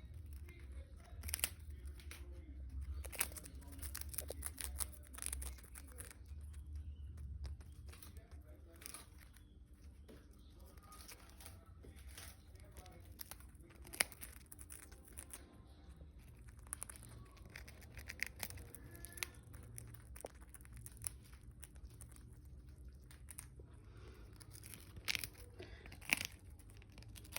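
Indian ringneck parrot biting and crunching a corn cracker: scattered sharp crackles and snaps, irregularly spaced, with a low rumble through the first seven or eight seconds.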